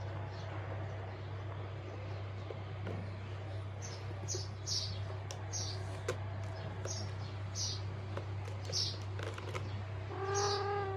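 A small bird chirping repeatedly: short, high notes falling in pitch, about one a second. Near the end comes a single drawn-out cat meow. A steady low hum runs underneath.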